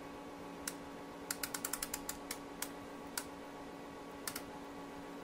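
Clicks of a detented time-per-division rotary switch on a 300 MHz oscilloscope being turned step by step. There is one click, then a quick run of about seven within half a second, then scattered single clicks and a close pair near the end, over a steady low hum.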